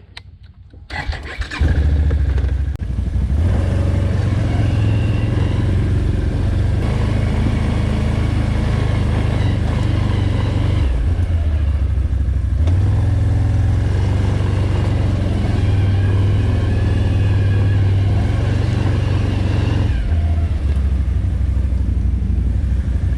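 ATV engine coming up loud about a second and a half in, then running steadily under throttle as the quad rides along the trail. The throttle is eased off briefly a few times.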